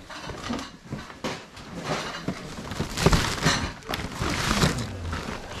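Close handling noise: irregular knocks, bumps and rustles as boxed items are picked up and moved about.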